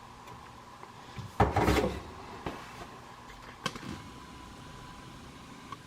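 Handling of a refrigerator's pantry drawer and its controls: a knock about one and a half seconds in, then a few faint clicks.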